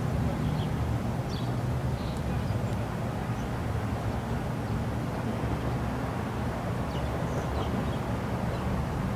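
Steady low engine rumble from out of sight, with a few faint short bird chirps above it.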